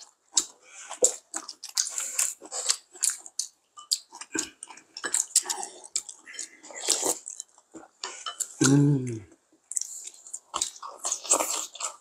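Two people chewing and eating at a table, with irregular small crackly mouth noises and taps of chopsticks and spoons. A short hummed voice sound comes about nine seconds in.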